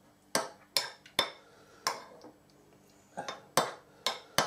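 A spoon clinking against a china bowl while prawns are stirred through Marie Rose sauce: a run of sharp clinks, four in the first two seconds and four more near the end.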